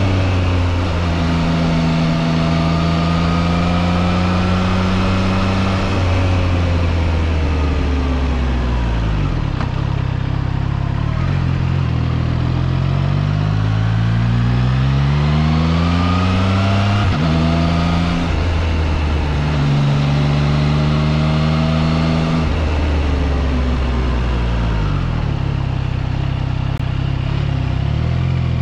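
Triumph Trident 660's inline three-cylinder engine heard from the rider's seat. Its pitch falls off and climbs again with the throttle, with several sudden pitch steps at gear changes as the bike slows for bends and pulls away.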